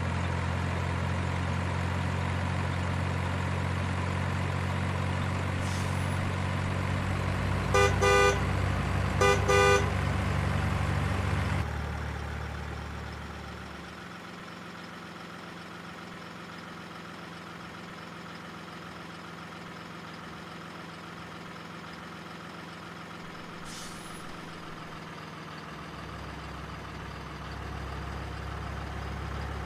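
Engine sound of a remote-control model vehicle or boat, running steadily, with two short horn toots about a second and a half apart near the middle. The engine note drops quieter about twelve seconds in and swells again near the end.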